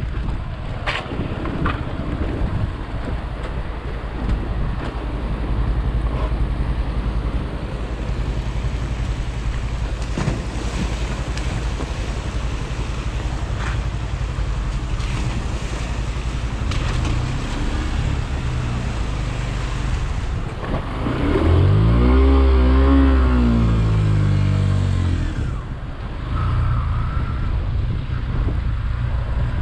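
Motorcycle running down a rough, wet, rocky mountain road, its engine mixed with tyre and road noise. About three-quarters of the way through, an engine rises and then falls in pitch over about four seconds, the loudest part.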